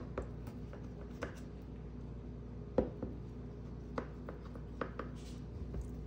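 Kitchen knife tip tapping and scraping on a countertop as it cuts through a thin sheet of dough: a few scattered light clicks, the sharpest one just under three seconds in, over a faint steady hum.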